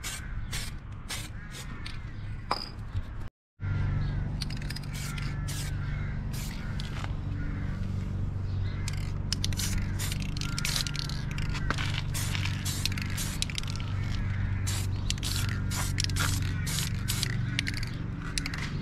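Aerosol spray paint can hissing in many short bursts as a coat goes onto a brake caliper. Birds chirp throughout, and after a brief dropout about three seconds in a steady low hum runs underneath.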